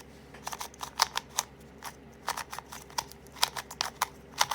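QiYi MS magnetic 2x2 speed cube being turned by hand: a quick, irregular run of sharp plastic clicks, several a second, as the layers snap round.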